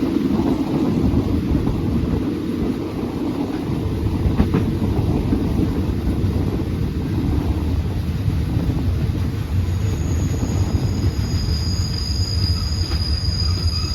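Passenger train carriage running on the rails, heard from aboard: a steady low rumble of wheels on track with the odd click. About ten seconds in, a thin, high wheel squeal joins in.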